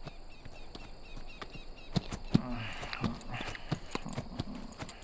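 Horse's hooves clopping along a dirt path at a walk, with the jingle of its tack. A few short low vocal sounds come in the middle.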